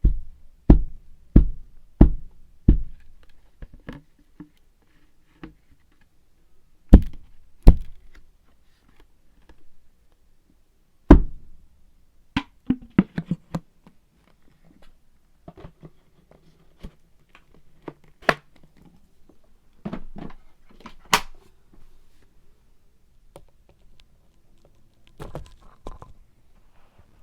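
Irregular hard thunks and knocks, like solid objects being set down or handled: a run of four evenly spaced knocks at the start, more scattered through the rest, with a few sharp clicks and quieter rustling between.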